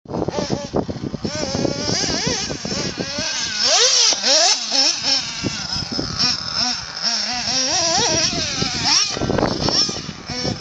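Small nitro engine of a 1:8-scale GS CLX RC buggy revving hard on the track. Its high-pitched whine rises and falls sharply again and again as the throttle is opened and shut.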